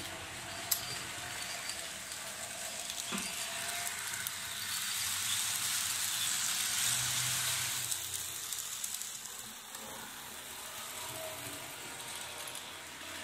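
A 30-year-old BTTB TT-scale model diesel locomotive running along the track: a steady hissing whir of its small motor and wheels on the rails, louder as it passes close by about five to eight seconds in. A single sharp click comes under a second in.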